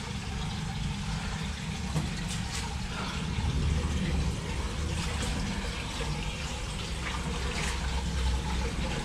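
Steady running water echoing inside a brick and stone storm-drain tunnel, with a low rumble of road traffic overhead that swells in the middle, and a few footsteps.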